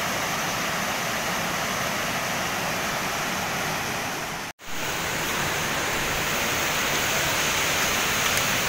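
Steady rushing of a waterfall pouring into a rock pool, a continuous even roar of falling water that cuts out for an instant about halfway through.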